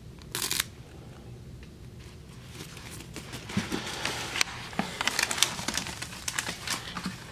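Plastic bags and old paper candy wrappers crinkling and rustling as they are handled. A short rustle comes about half a second in, and a dense run of quick crackles follows from about halfway on.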